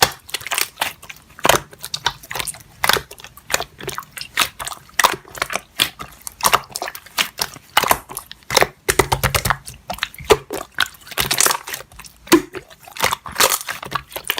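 Slime being squeezed and kneaded by hand: a steady run of wet clicks, squelches and crackling pops.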